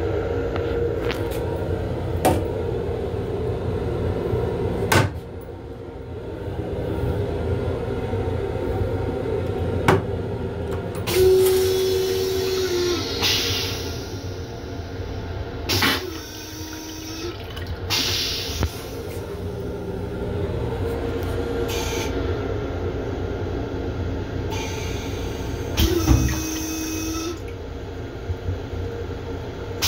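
Long Island Rail Road M7 railcar toilet flushing in several bursts of rushing water and suction, each with a steady motor hum, over the constant rumble of the moving train. A few sharp clacks of the toilet fittings come before the flush.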